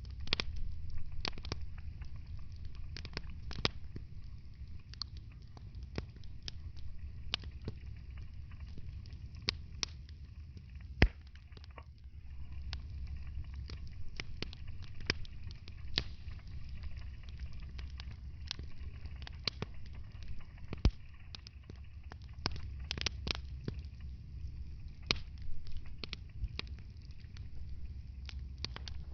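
Wood fire burning in a fireplace, crackling and popping at irregular moments over a steady low rumble of the flames. Two pops stand out as the loudest, one about eleven seconds in and another about twenty-one seconds in.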